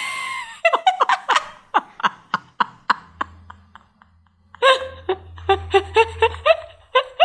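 Laughter in staccato "ha" pulses, each one falling in pitch: a first run of about four a second, then a brief pause, then a second, quicker run.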